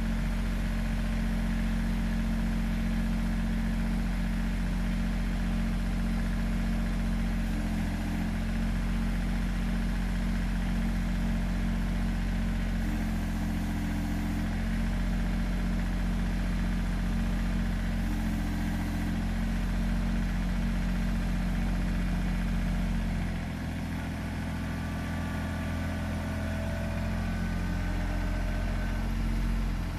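Compact tractor-loader-backhoe's diesel engine running steadily while the loader carries a load, with a few brief higher notes along the way; its sound drops a little about three-quarters of the way through.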